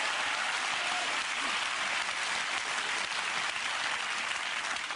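Studio audience applauding, a steady, dense clapping throughout.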